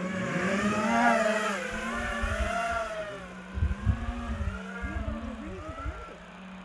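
FPV racing quadcopter's motors whining in flight, the pitch rising and falling several times as the throttle changes, with a low rumble about four seconds in.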